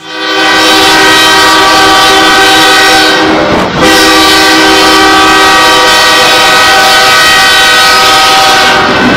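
Locomotive air horn sounding for a road level crossing, heard loud from inside the cab: two long blasts, the first about three and a half seconds, then after a brief dip a second of about five seconds.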